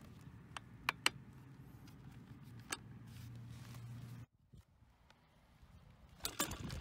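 A steady low hum with several sharp clicks in the first part. Near the end, a short burst of clattering as the folding electric wheelchair's aluminium frame is folded.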